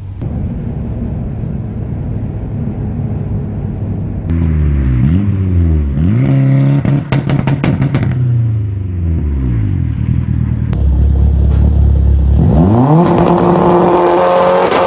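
Mitsubishi Eclipse engine revved hard in short blips through a loud aftermarket exhaust, the pitch rising and falling. A quick run of sharp pops about halfway through, as the revs drop, is the exhaust backfiring. Near the end the engine climbs and holds high revs, with more crackling.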